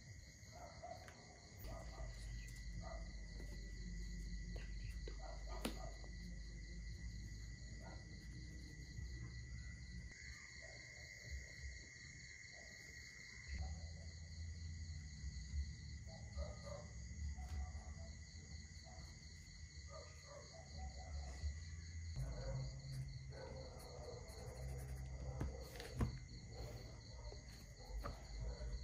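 Insects, crickets by the sound of it, chirping in a steady high-pitched chorus over a low rumble.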